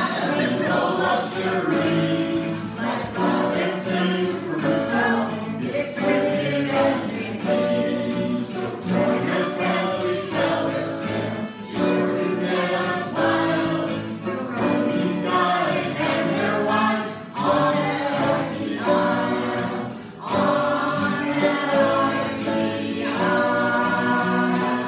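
A small group of men and women singing a song together, accompanied by acoustic guitar.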